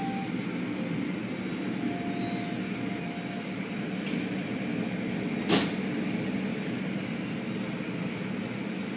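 Automatic car wash tunnel equipment running: a steady mechanical rumble of motors and water, with one short sharp sound about five and a half seconds in, the loudest moment.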